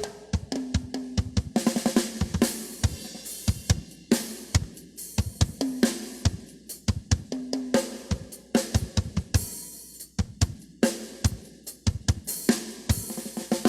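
RBDrums Compactline 6-inch and 8-inch rototoms played in quick pitched runs together with a drum kit's snare, bass drum and cymbals.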